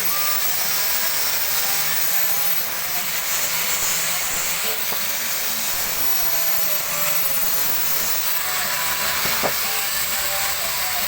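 A power tool running steadily with an even hiss.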